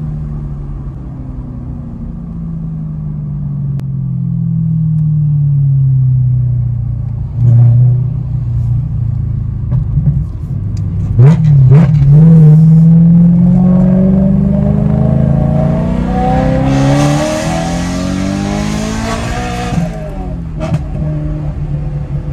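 BMW E92 M3's V8 through a Bomiz aftermarket exhaust, revving up and down. Several sharp exhaust pops crack out around the middle, then the engine climbs again while a hiss joins in, before it settles back near the end.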